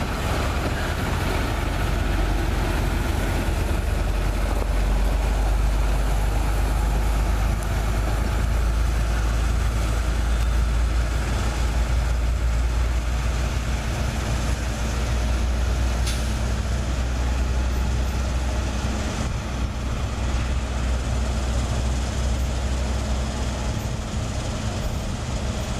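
Truck engine of a hi-rail spray truck running steadily as it rolls along the rails on its guide wheels, a low rumble that eases slightly near the end as the truck moves away.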